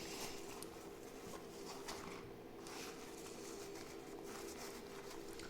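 Faint handling noises, light ticks and rustles of accessories and packaging being moved about, over a low steady hum in a small room.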